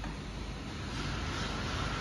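Steady background rushing noise that grows somewhat louder about a second in.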